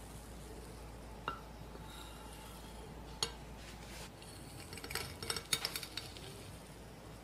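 A metal knife clicks twice against a ceramic plate as it cuts down through a soft cheesecake. Then a metal cake server scrapes and clinks on the plate in a quick cluster as it slides under the slice.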